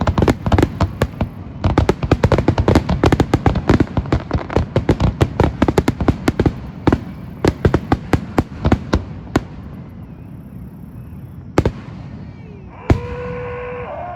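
Fireworks finale: a dense, rapid barrage of bangs and crackles that thins out after about nine seconds to a few last single bangs. Near the end a steady, loud horn starts sounding.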